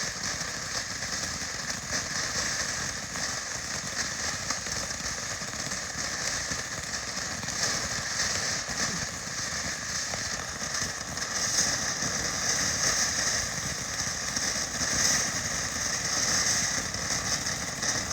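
Ground fountain firework burning: a steady high hiss of spraying sparks with fine crackle, a little louder in the second half.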